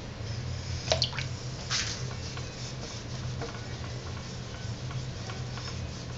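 Hands working wet clay: a sharp tap about a second in, a short wet squish just after, then scattered small ticks, over a steady low hum.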